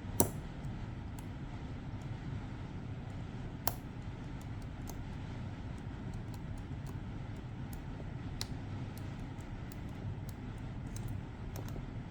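Faint, scattered small metallic clicks from a Medeco pin-tumbler lock being picked, as the tension is worked back and forth and the rotating pins click. Two sharper clicks stand out, one just after the start and one nearly four seconds in, over a steady low background hum.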